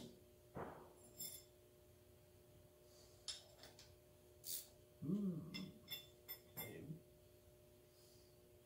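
Scattered light metallic clicks and clinks of hand tools and parts at the front wheel spindle of a John Deere 4720 compact tractor, over a faint steady hum. A brief low murmur or grunt from the mechanic comes about five seconds in.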